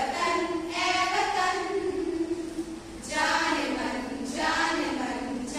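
A group of women singing a song together in held, wavering notes. One phrase fades out about two and a half seconds in, and the next begins about three seconds in.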